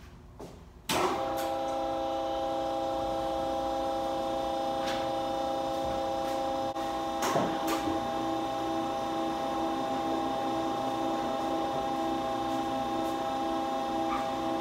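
Factory machine switched on about a second in, starting abruptly and running with a steady hum of several tones as it is left to warm up. About halfway through, the lowest tone begins to pulse evenly, and two sharp knocks sound.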